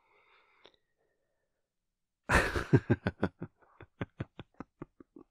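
A man laughing: after about two seconds of near silence, a loud burst of laughter breaks into a quick run of short chuckles that grow fainter toward the end.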